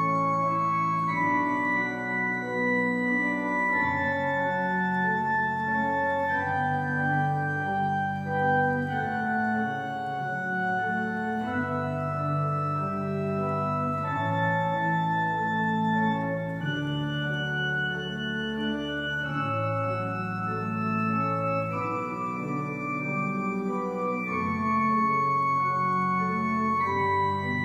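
Organ music played on manuals and pedals: sustained chords and a slowly moving upper melody over held bass notes, at an even volume.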